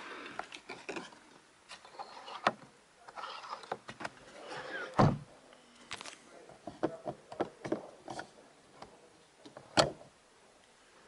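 Scattered clicks, knocks and rustling from a hand handling the plastic interior trim and overhead console of a Volkswagen Scirocco's cabin, along with handling of the camera. Two sharp thumps stand out, one about halfway through and one near the end.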